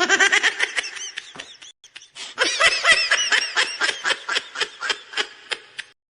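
Laughter sound effect: a rapid string of short, high-pitched laughing syllables in two bouts, the second trailing off.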